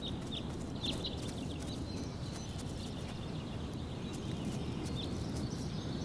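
Outdoor ambience: a steady low rumble with a few short, high bird chirps about a second in and again near the end.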